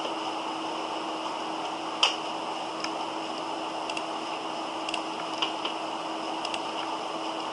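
Computer mouse clicking about eight times at uneven intervals, the loudest click about two seconds in, over a steady hiss and faint low hum.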